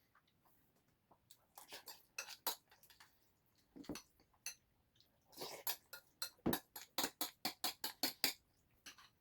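Spoon clinking and scraping against a dish while eating, sped up to double speed: a few scattered clinks, then a quick run of about four strokes a second in the second half.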